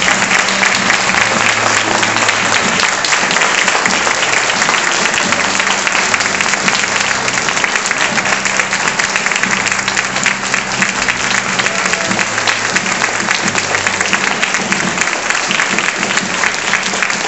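Audience applauding steadily, with music playing underneath in sustained low notes.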